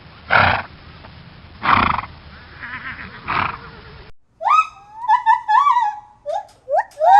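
Three harsh, noisy animal calls about a second and a half apart. After a cut comes a quick run of short, high-pitched cries that rise and fall in pitch.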